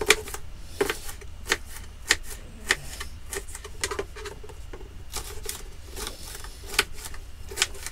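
A kitchen knife chopping red peppers on a chopping board: irregular sharp taps of the blade striking the board, about one or two a second.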